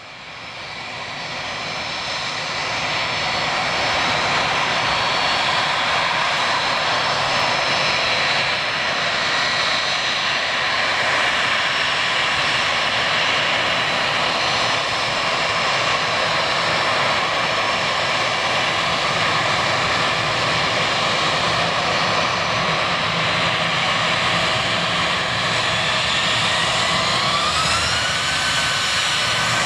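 Airbus A319 twin jet engines running loud and steady with a high whine, fading in over the first few seconds. Near the end the whine rises in pitch as the engines spool up.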